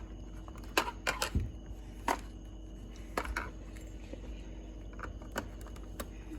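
Irregular sharp clicks and taps of a screwdriver and small screws against a plastic Nerf blaster shell as it is unscrewed and taken apart, about nine in all, several close together near the first second.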